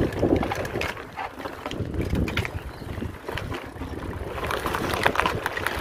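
Mountain bike riding fast down a dirt forest trail: rolling tyre noise with many short rattles and knocks from the bike over the bumps, more of them near the end, and wind buffeting the microphone.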